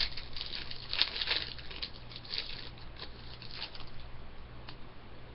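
Hockey trading cards being handled and flipped through, a run of light ticks and rustles that is busiest in the first three seconds and thins out after, over a low steady electrical hum.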